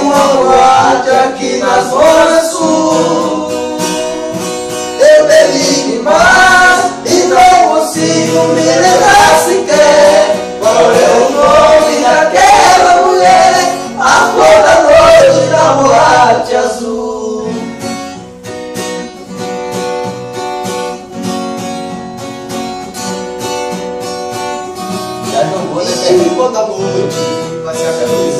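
Male voice singing over acoustic guitar. The singing drops out a little past the halfway point and the guitar plays on alone, with the voice coming back in near the end.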